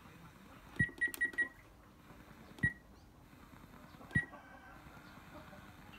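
Button presses on a Panasonic RX-DS45 boombox, each a click with a short high beep: a quick run of four or five about a second in, then single presses twice more, while the radio is tuned by button. Faint hiss fills the gaps between presses.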